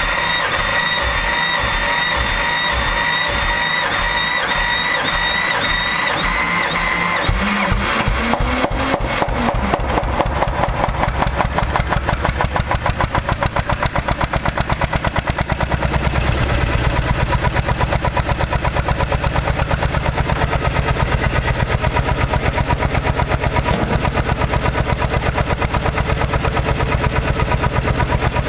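The BN 15R narrow-gauge diesel locomotive's engine being started. The starter cranks it with a steady whine and slow, even turnover beats for about seven seconds, then it catches, rises in speed and settles into a steady, rhythmic chugging idle, smoking heavily as it does on a cold start.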